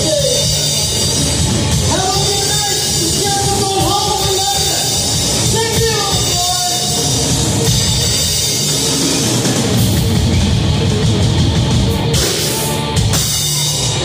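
Live rock band playing loud: electric guitar, bass guitar and drum kit, with a man singing lead over roughly the first half. The vocals stop about halfway through while the band plays on, with a cymbal-heavy stretch near the end.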